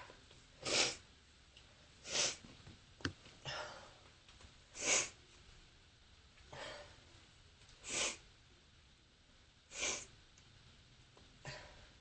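A person with bronchitis sneezing over and over, about eight harsh sneezes, one every second or two, some softer than others. A sharp click comes about three seconds in.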